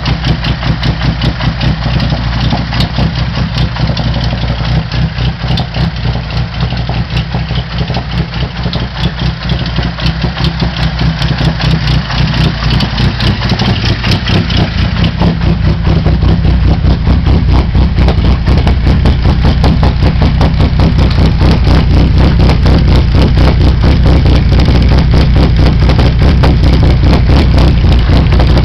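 A 2006 Chevy Cobalt's four-cylinder engine, fitted with stage 2 camshafts and freshly tuned, idling with a steady pulsing exhaust note. It grows louder about halfway through as the tailpipe is approached.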